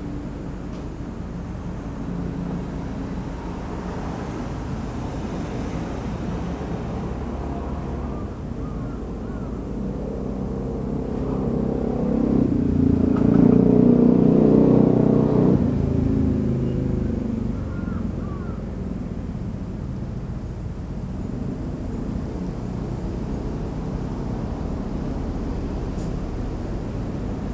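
Steady low rumble of distant motor traffic, with a motor vehicle passing that swells to its loudest about halfway through and fades again.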